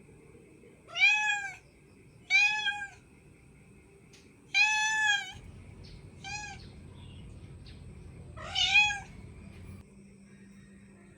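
A cat meowing five times, each meow rising and then falling in pitch. The fourth meow is short and quieter than the others.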